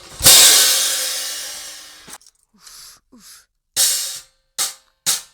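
A crash cymbal struck hard once, ringing out and fading over about two seconds, followed by three short, bright cymbal hits.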